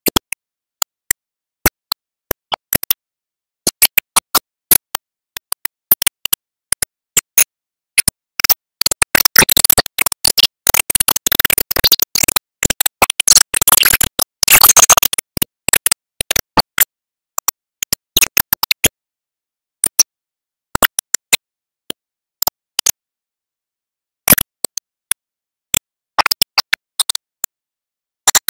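Sharp digital clicks and crackles separated by dead silence, scattered at first and dense for several seconds in the middle: a broken, glitching soundtrack with no engine or machine sound heard.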